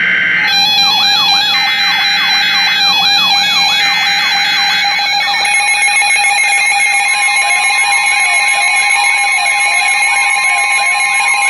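Several electronic alarm tones sounding together: a siren-like whoop rising and falling about twice a second over a steady tone and on-off beeping. About five seconds in, more alarm layers join, including a second, slower sweeping siren and another steady tone.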